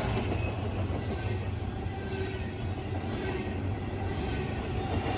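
Freight train's loaded double-stack well cars rolling past close by: a steady rumble of steel wheels on the rails.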